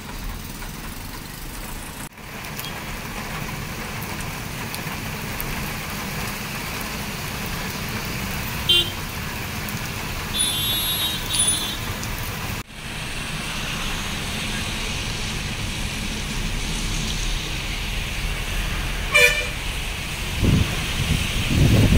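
Steady hiss of rain and tyres on wet road in city traffic. Short car horn toots sound about nine seconds in, twice around eleven seconds, and again a few seconds before the end. A louder low rush starts just before the end.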